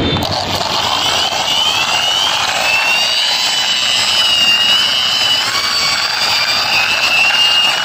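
A toy semi truck's plastic wheels rolling along a rough concrete wall top as it is pushed by hand, with a high whine that slowly wavers in pitch.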